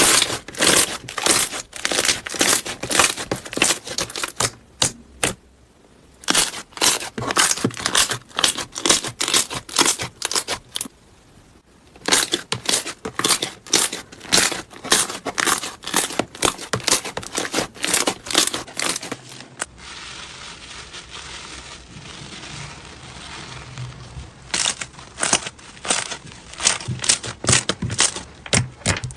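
Slime being squeezed and pressed by hand, giving rapid crackling pops in several runs broken by short pauses. About two-thirds of the way through the pops give way to a few seconds of softer, steady rustling before they start again.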